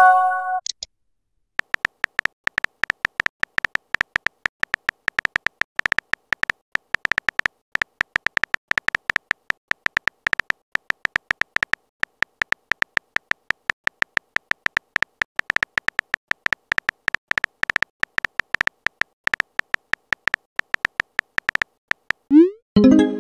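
Synthetic keyboard-typing ticks from a texting-story app, rapid and irregular, each with a short beep-like tone, as a message is typed letter by letter. A short message-received chime sounds right at the start, and a rising swoosh with a chime comes near the end as the message is sent.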